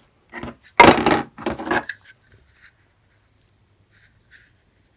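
Plastic vacuum-cleaner accessories and their packaging handled during unboxing: a few short knocks and rubs in the first two seconds, the loudest about a second in, then only faint ticks.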